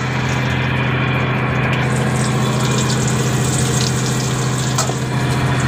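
Fishing boat's engine running with a steady, even drone. From about two seconds in, battered fish crackles and sizzles as it deep-fries in hot oil in a kadai.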